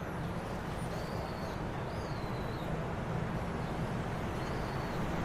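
Steady outdoor background rumble with a few faint high chirps, about one, two and four and a half seconds in.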